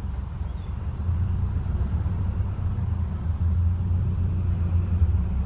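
City bus engine and road noise heard from inside the passenger cabin: a steady low rumble that grows louder about a second in.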